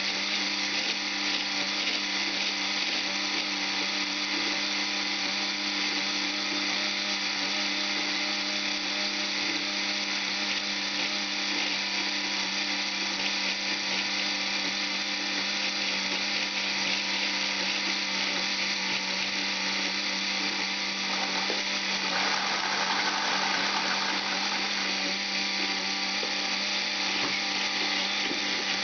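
LEGO painting machine's electric motors and plastic gear train whirring steadily as they drive the brush arm. The whine shifts in tone for a few seconds about three quarters of the way through.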